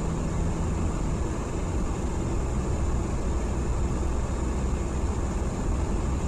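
Steady road and engine noise inside a vehicle's cab cruising at highway speed, mostly a low rumbling hum with tyre hiss over it.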